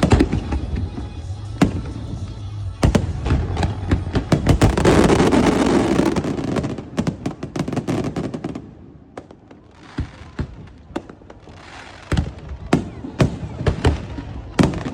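Fireworks going off: a string of sharp bangs, with a dense rapid volley of bangs about five seconds in that lasts a couple of seconds, then quieter, scattered single bangs.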